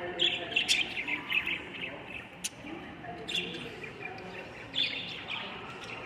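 Caged pet-store birds chirping and twittering in short bursts, with a single sharp click about two and a half seconds in.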